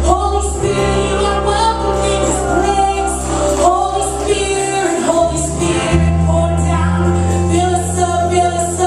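Live worship music: a band holding low sustained bass notes under a group of voices singing a slow worship song, the bass note changing a few times.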